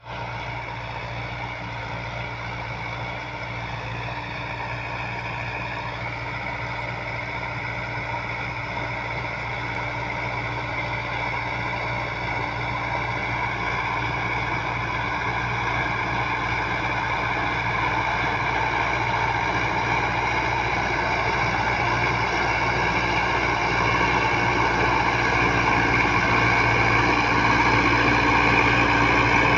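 Sonalika Tiger DI 60 tractor's diesel engine running steadily under load while pulling an 8-foot rotavator through the soil. It grows steadily louder as the tractor approaches.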